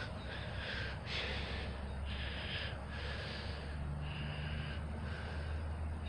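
Soft, breathy puffs of breathing or snorting, repeated irregularly about once or twice a second, over a steady low hum.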